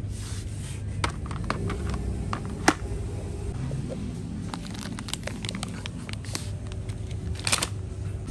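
Groceries being handled: a tin can and plastic-wrapped packets picked off shelves and dropped into a plastic shopping basket, giving scattered clicks, knocks and plastic crinkling. The sharpest click comes a bit under three seconds in. A steady low store hum runs underneath.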